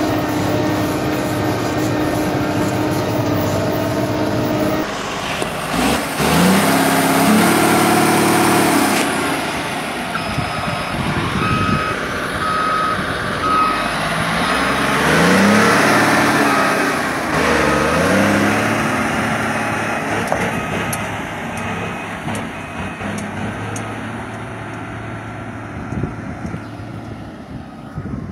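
Caterpillar 140H motor grader's diesel engine running, its pitch rising and falling several times as the revs change. From about ten seconds in, a back-up alarm beeps at an even pace as the grader reverses. The sound grows fainter near the end.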